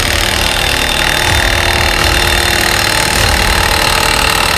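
Milwaukee M18 Fuel 2767 half-inch high-torque impact wrench hammering steadily under load, driving the screw of an Astro Tools exhaust pipe expander to stretch stainless steel exhaust pipe.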